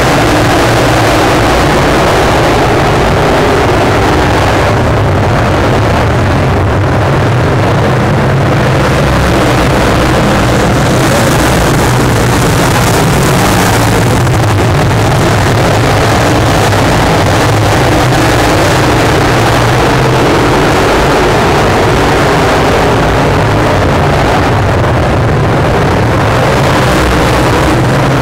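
A pack of dirt modified race cars running together on a clay oval, their V8 engines at racing speed, loud and steady.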